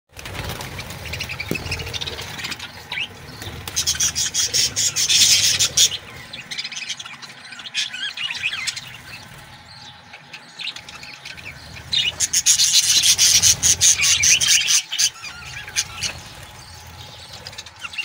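Small yellow-green pet parrots chirping and chattering at a clay-pot nest, with two loud bursts of rapid, busy chatter.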